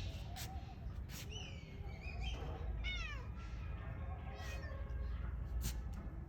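A cat meowing: short calls that fall in pitch, one about a second and a half in and another about three seconds in, with a fainter one a little later. A steady low rumble and a few faint clicks run underneath.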